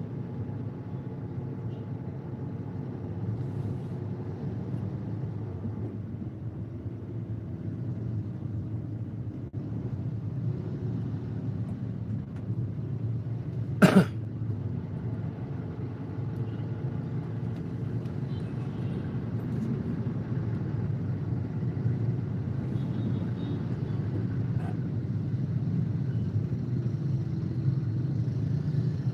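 Steady low rumble of a car's engine and surrounding traffic, heard from inside the cabin in slow stop-and-go traffic, growing a little louder toward the end. One short, sharp noise comes about halfway through.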